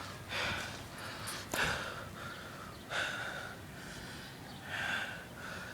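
A person breathing audibly close to the microphone: about four short breaths, roughly a second and a half apart.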